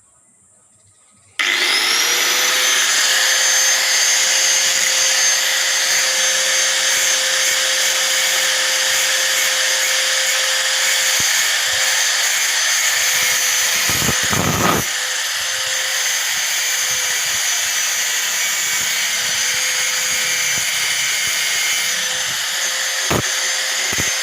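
Electric hand angle grinder switched on about a second and a half in, its whine rising as the motor spins up, then running steadily at full speed with a high whine and hiss.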